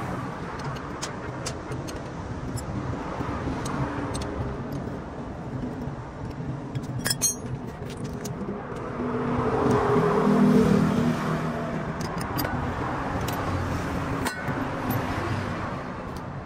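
Road traffic: a steady rumble with a vehicle engine that grows louder and peaks about ten seconds in, then fades. A few sharp metallic clinks stand out, around seven and fourteen seconds in.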